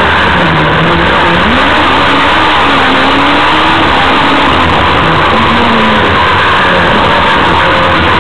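Car engine heard onboard, its pitch rising and falling repeatedly as it accelerates and backs off through the bends, under a loud steady rush of road and wind noise.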